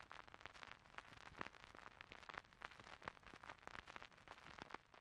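Near silence with faint, irregular clicks scattered through it.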